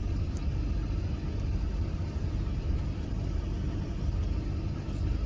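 Steady low rumble of a motor vehicle, with a couple of faint ticks.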